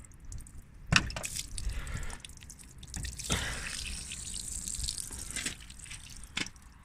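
Water running and dripping out of the bottom of a Vauxhall Zafira Tourer door as its clogged rubber drainage bung is prised out with a flat blade, with sharp clicks about a second in and again near the end. The water had been trapped in the door by the blocked drain, which was the cause of the sloshing heard while driving.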